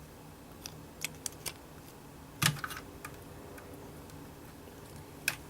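Scattered light clicks and taps of hands handling cables and parts in an open DVR case during a hard drive install, the loudest about two and a half seconds in, over a faint steady hum.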